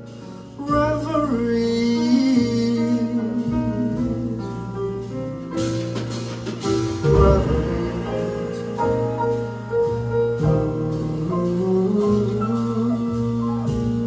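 A jazz band plays live on piano, bass and drums, with a voice singing wordless, gliding lines over the band.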